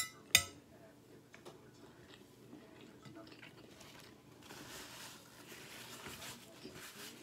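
A fork clinks twice against a plate, about a third of a second apart. Then comes quiet chewing of a mouthful of chicken Alfredo pasta.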